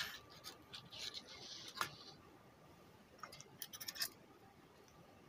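A power supply circuit board being handled on a workbench: it is picked up, turned over and set down with scattered faint clicks and a brief scrape, then a quick run of small clicks about three to four seconds in.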